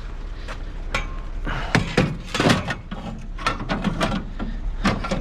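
Scrap being handled: a string of knocks, clunks and metallic clinks, several in quick succession around the middle, over a steady low hum.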